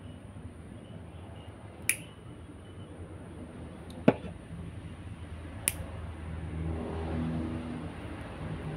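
Nail clipper snipping nails, three sharp clicks spread a couple of seconds apart, as the nails are cut very short. A steady low hum runs underneath, swelling for a while near the end.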